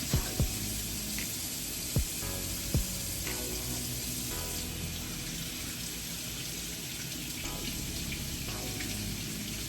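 Tap running into a sink while hands are washed under it, with a few sharp knocks in the first three seconds.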